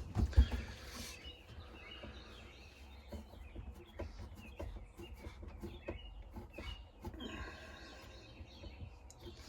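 A couple of knocks right at the start, then light clicks and taps of tools and a clamped workpiece being handled, with birds chirping faintly in the background.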